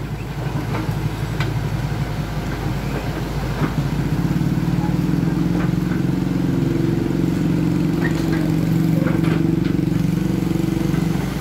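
Crawler excavator's diesel engine running, working up to a heavier, louder drone about four seconds in as the boom and bucket are worked under hydraulic load, with a few light knocks.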